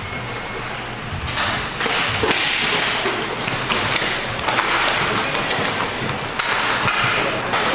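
Inline hockey play: sticks and puck clacking and tapping in quick, irregular knocks, over a steady rushing hiss that comes up about a second in.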